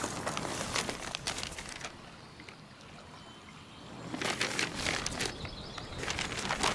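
Paper sheets rustling and crinkling as they are picked up and leafed through, in two spells with a quieter lull of about two seconds between them.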